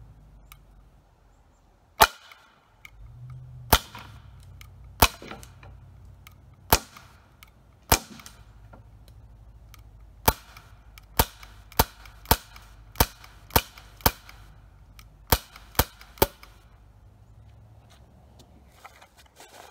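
CO2 air pistol firing about fifteen sharp shots. The first five come every second or so, then after a short pause the rest follow in quicker bursts, about two a second.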